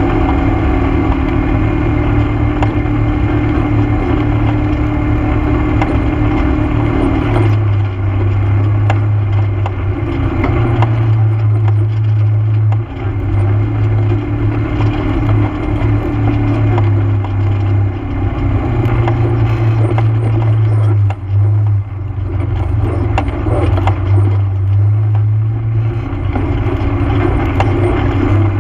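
ATV engine running as it drives along a rough dirt trail. Its note shifts several times as the engine speed changes, with a couple of brief dips in level.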